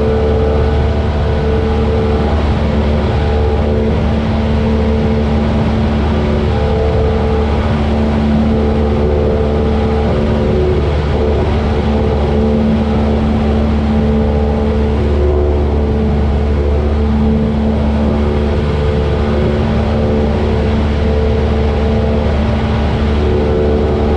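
Single-engine Cessna's piston engine and propeller running steadily, a constant drone with no change in pitch.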